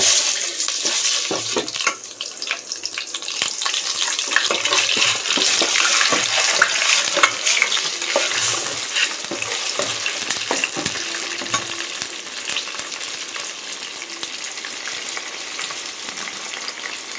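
Ginger-garlic paste sizzling in hot oil in a pan while it is stirred, with many small scrapes and taps of the spoon against the pan. The sizzle eases off gradually in the second half.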